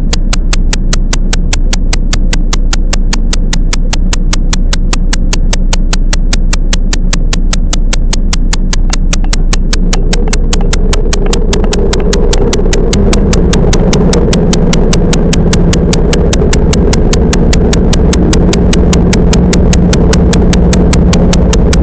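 Inside a running electric train car: a steady, rapid clicking at about four clicks a second over the low rumble of the car, with a low motor hum growing in about halfway through.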